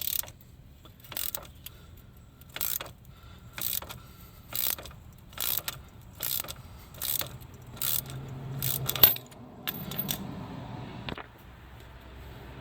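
Ratchet wrench turning the 16 mm nut off the ball-joint pinch bolt. It clicks in short bursts about once a second, a little faster toward the end, and gives way to a rougher scraping sound shortly before the end.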